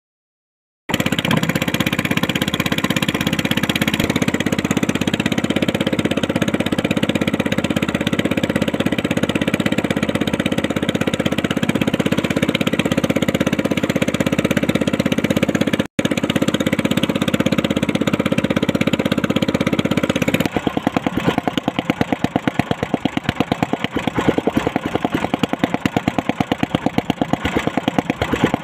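Small outrigger fishing boat's motor running steadily under way. About two-thirds of the way through, its sound changes to a fast, evenly spaced put-put beat.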